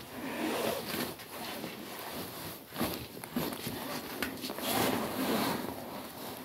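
Chickens clucking softly in a coop, with rustling in the straw and a few sharp clicks.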